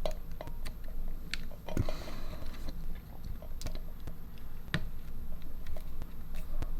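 Scattered small clicks and taps of hand tools and fingers on phone parts while the battery connector is being fitted, over a low steady hum.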